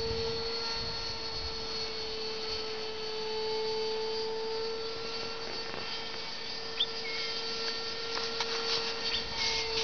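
Distant RC model airplane engine droning at a steady pitch as the plane flies overhead. A few short chirps come near the end.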